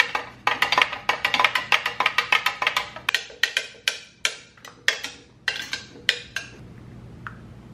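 Quick clinks and knocks against glass pitchers as mojito ingredients are stirred and handled. They come fast at first, then slow to about three a second and stop about six and a half seconds in.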